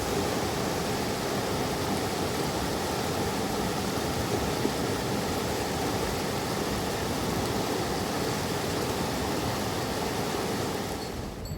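Mountain river rushing steadily, a dense even roar of flowing water that stops suddenly near the end.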